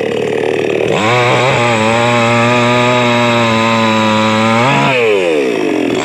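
Two-stroke petrol chainsaw revved up: about a second in the throttle opens and the engine climbs quickly to high revs, holds there steadily for about three seconds, then drops back toward idle near the end.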